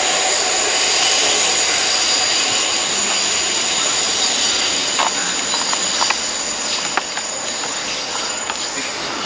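Wheels of a freight train's hopper wagons squealing as the train runs away round a curve, a steady high-pitched squeal over the rumble of the wagons. A few sharp clicks come in the second half, and the squeal stops just before the end.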